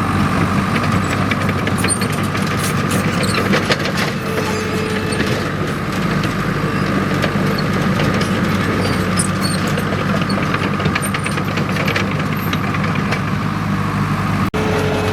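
Komatsu D37EX crawler bulldozer's diesel engine running steadily, with frequent clicks and clatter over it. The sound cuts out for an instant near the end.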